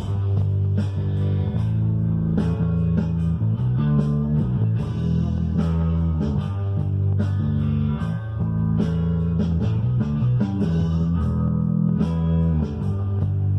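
Rock guitar music: guitar played over a backing track with bass and drums, the bass notes changing every second or two under regular drum hits.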